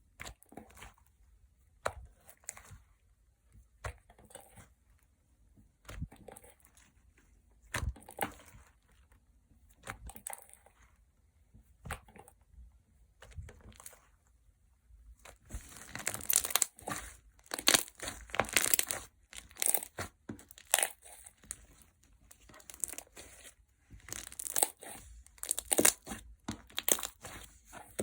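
Clear gel slime being squeezed and pulled by hand, making wet pops and crackles: scattered single pops at first, then a dense, louder run of crackling from about halfway.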